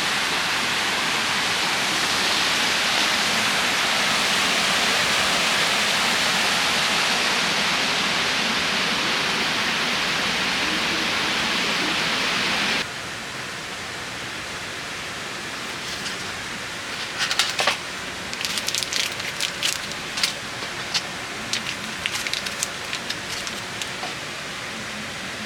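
Steady rain hissing. About halfway through it cuts to quieter rain with scattered sharp drops tapping on a surface.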